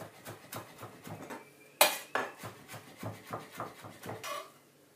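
Chef's knife chopping fresh spearmint on a wooden cutting board: quick repeated taps of the blade on the board, about three or four a second, with one harder knock near the middle, stopping shortly before the end.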